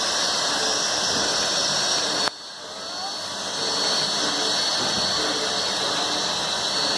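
Sierra Railway No. 3, a 4-6-0 steam locomotive, giving off a steady hiss of steam. The hiss drops off suddenly a little over two seconds in, then builds back up.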